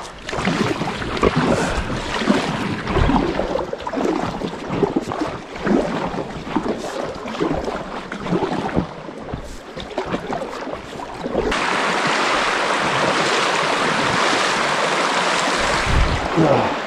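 Splashing and sloshing of someone wading upstream through a shallow river, with irregular knocks underfoot. About eleven seconds in it gives way suddenly to the steady rush of fast-flowing river water.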